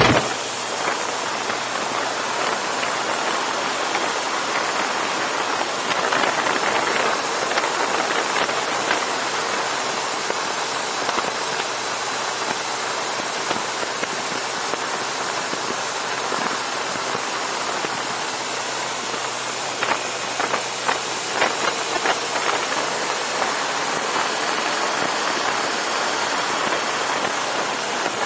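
Steady wind and road rush over the microphone of a camera mounted on a BMW adventure motorcycle under way, with a faint engine hum underneath.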